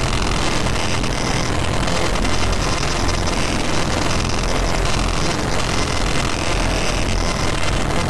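Harsh noise music from a SunVox modular patch built around feedback modules: a dense, distorted wall of noise with a heavy low rumble under a high hiss that thickens and thins, at a steady loud level.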